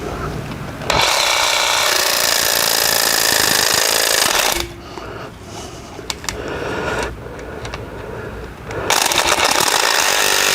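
Jigsaw cutting the end off a metal door sweep with a wood-cutting blade, in two bursts: one of about three and a half seconds starting about a second in, and a shorter one near the end.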